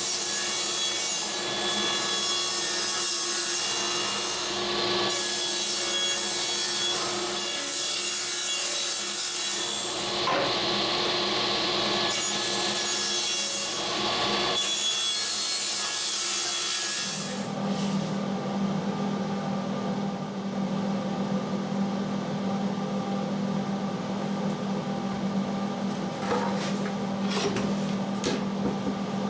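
A power saw cutting plywood in several passes, each cut a few seconds long, over the saw's steady running hum. About two-thirds of the way through, the cutting stops and a lower, steady machine hum takes over, with a few clicks near the end.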